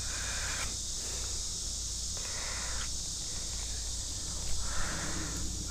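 Insects drone steadily and high-pitched in summer creek-side vegetation. A few short bursts of rustling noise come in over it, the loudest near the end.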